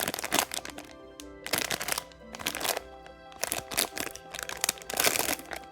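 Soft background music with steady held notes, overlaid by short bursts of crinkling packaging as a blind box and its bag are handled, a few times through.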